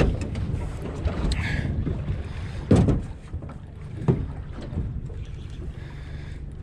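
Wind buffeting the microphone over open water, with a steady low rumble and a few dull knocks, the loudest about three seconds in.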